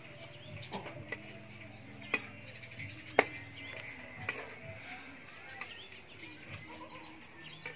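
A few sharp clinks of a metal spoon and tableware against ceramic dishes, the loudest about two and three seconds in, with faint bird chirps in the background.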